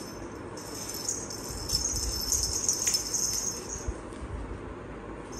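Small bell on a cat's wand toy jingling as the toy is shaken, louder and busier from about a second in until nearly four seconds.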